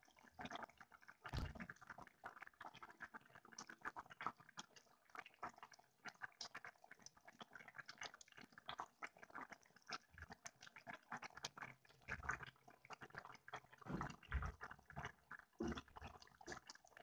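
A pot of chicken and potato soup bubbling on the stove: a dense, irregular crackle of small bubbles popping. There is a dull low thump about a second and a half in and another near the end.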